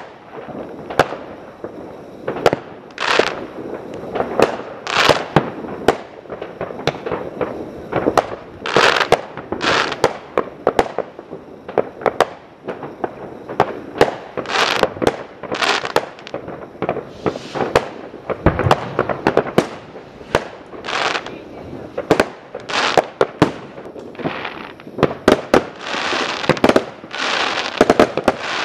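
New Year fireworks going off in quick succession: many sharp bangs of aerial shells bursting, some overlapping and echoing, with a longer hissing stretch near the end.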